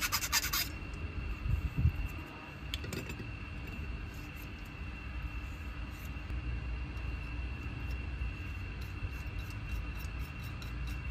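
A round file rasps in quick, even strokes inside the cut end of a copper pipe, removing the rolled edge that a wheel-type pipe cutter leaves. The filing stops under a second in, leaving a steady low hum, a faint high tone and a few light clicks.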